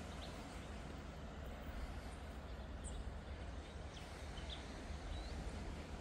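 Outdoor ambience: a steady low rumble with a few faint, short bird chirps scattered through it, one rising slightly about five seconds in.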